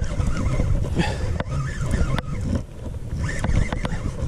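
Wind buffeting the microphone on an open inflatable boat, a low uneven rumble, with a few sharp clicks and brief wavering higher-pitched sounds about a second in and again past three seconds.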